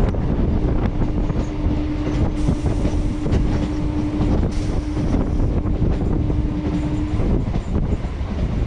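Electric multiple-unit suburban train running, heard from its open doorway: a loud steady rumble of wheels on the track with frequent clicks. A steady hum runs underneath and stops about seven seconds in.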